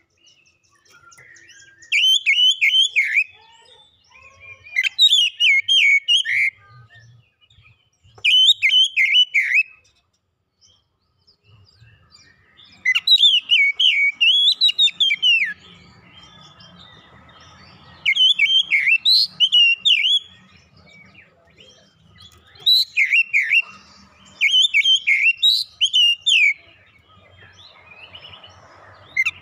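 Oriental magpie-robin (kacer) singing: short phrases of rapid, clear whistled notes, about seven bursts with pauses of one to three seconds between them.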